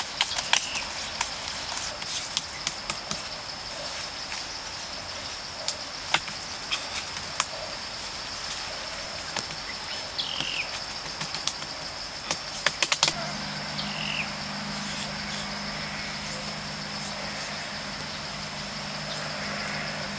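Hands patting and pressing wet mud, heard as scattered soft slaps and taps with a quick cluster of taps about two-thirds of the way through. Behind it runs a steady high-pitched insect drone with a few short bird chirps, and a low steady hum comes in about two-thirds of the way through.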